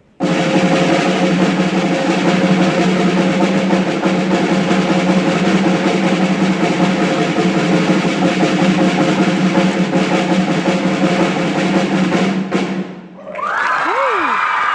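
Drum kit played in a fast, unbroken roll that breaks off about two seconds before the end. A different, higher-pitched sound with a wavering pitch follows it.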